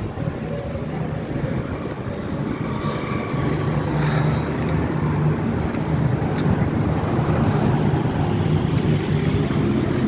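A motor vehicle's engine running close by, a low steady hum that is strongest through the middle seconds, over general street noise.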